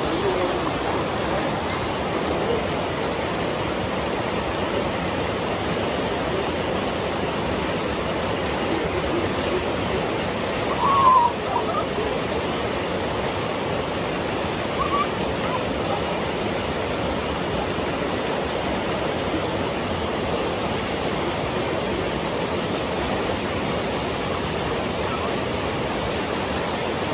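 Steady rush of a waterfall and fast-flowing river water, running strong after rain. A brief higher-pitched sound stands out about eleven seconds in, with a fainter one a few seconds later.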